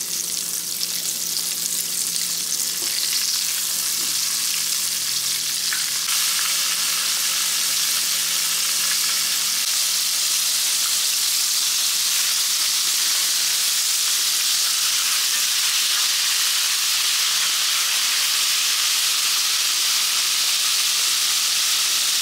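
Battered chicken tenders deep-frying in hot oil in a cast-iron pot: a steady, bright sizzling.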